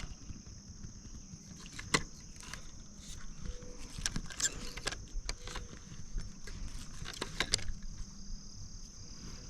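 Insects chirring in a steady, high-pitched drone, with scattered light clicks and knocks; the sharpest click comes about two seconds in.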